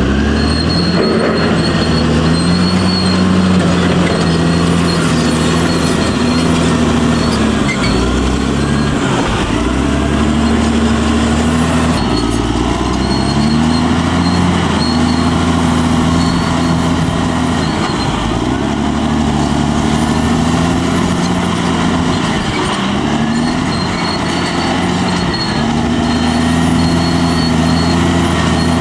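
Caterpillar D6R crawler bulldozer's diesel engine running under changing load, its pitch rising and falling every few seconds as it pushes. Faint high squeals of the steel tracks recur over it.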